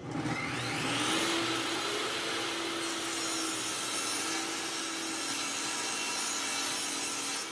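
Jobsite table saw starting up, its whine rising over the first second, then running steadily while a plywood panel is ripped to width.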